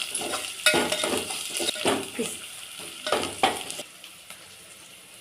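Onions and spices frying in oil in a pan, sizzling while they are stirred with a few scraping strokes. The stirring stops about four seconds in, leaving a quieter sizzle.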